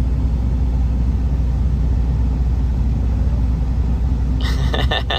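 Semi-truck diesel engine idling with a steady low rumble.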